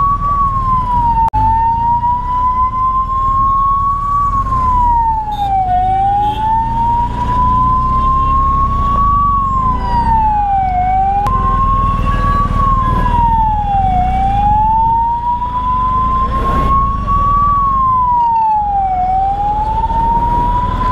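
Ambulance siren wailing: a single tone that climbs slowly and then drops quickly, repeating about every five seconds, over the low rumble of engines in traffic.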